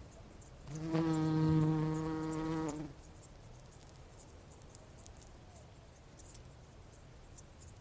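Bumblebee buzzing in flight: a steady low hum that starts about a second in and lasts about two seconds, then fades away.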